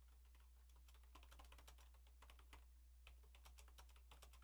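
Faint computer keyboard typing: a quick, irregular run of keystrokes, over a steady low hum.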